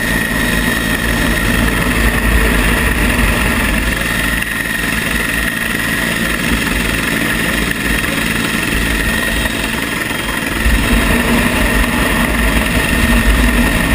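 Rescue helicopter's engines and rotor running steadily close by, with a steady high whine over a dense rushing noise, a little louder near the end.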